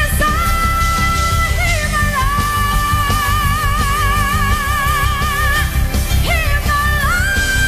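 Live pop-rock song from a full band with heavy bass, over which long high notes are held with a wide, steady vibrato. The held notes change pitch about two seconds in and again near the end.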